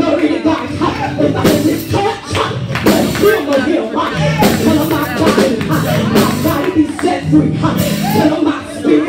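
Upbeat church praise music with drums keeping a steady beat.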